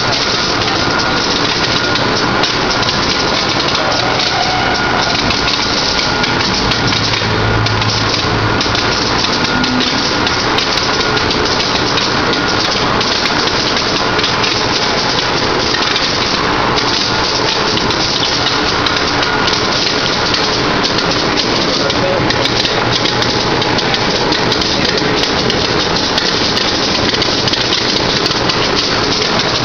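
Cranberry sorting line running: a steady machine noise of conveyor belts, with berries falling off the end of the belt into a plastic bin. A faint steady tone and a low hum sit under it.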